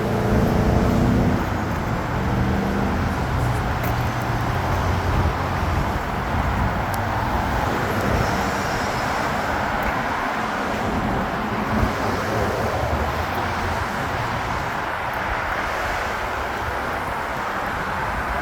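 Road traffic moving through a busy intersection, with a steady wash of engine and tyre noise. A nearby vehicle's engine is loudest in the first few seconds.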